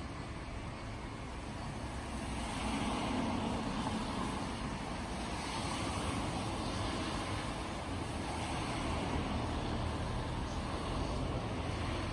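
A steady rumble of road traffic, growing a little louder about two seconds in.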